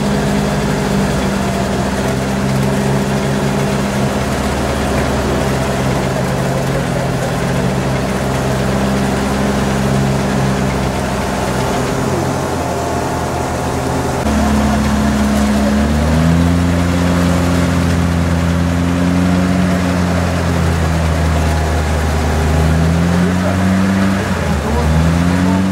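Off-road 4x4's engine running under load while working through deep mud: a steady note for the first half, then revved, its pitch climbing and falling repeatedly from about halfway through.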